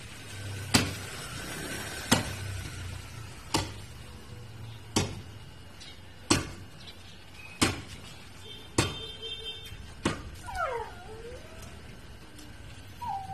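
A long-handled digging tool striking hard ground again and again while a drainage trench is dug, one sharp blow about every second and a half. A little past the middle a dog gives a short falling whine.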